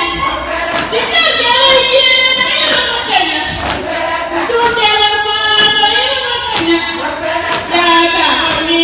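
A group of women singing a Shilluk dance song together in sustained, wavering notes, with a sharp percussive beat about once a second.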